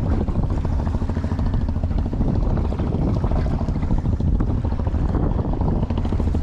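A small fishing boat's engine running steadily at sea, a continuous low rumble with a fast throb, mixed with the wash of choppy water.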